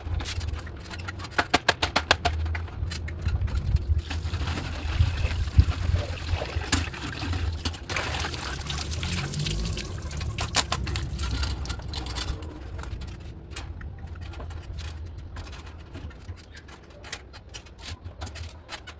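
Water running and splashing, with runs of sharp clicks and clatter, as a fan's parts are washed.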